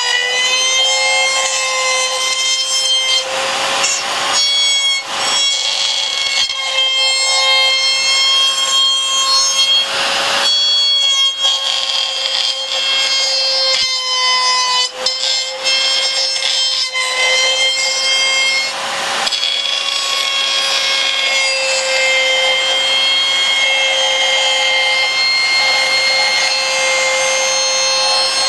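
DeWalt compact router running at a steady high whine while routing the fin-box slot through a surfboard's fiberglass and foam, with several louder spells of cutting noise as the bit bites in.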